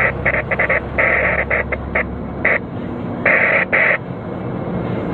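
Inside a Freightliner FL112 truck cab, the diesel engine runs steadily underneath. Over it the CB radio gives about a dozen choppy, broken bursts of static and garbled transmission, some very short and some about half a second long. The engine hum eases about two and a half seconds in.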